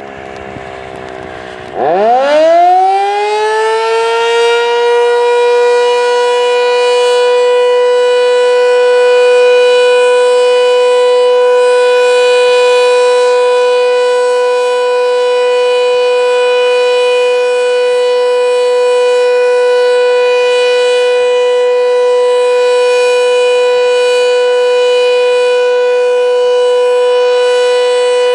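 Sentry 7V8-B outdoor warning siren winding down, then spinning back up about two seconds in with a steep rising wail. It levels off into a steady high tone, held as the alert signal.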